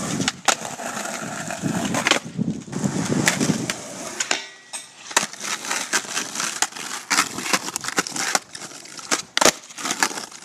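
Skateboard wheels rolling over asphalt, then a run of sharp wooden clacks as the board's tail pops and the deck lands on the road, several times in the second half.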